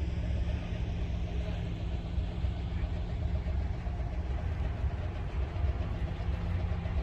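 Heavy diesel engine of a road-construction machine running steadily, a low even rumble.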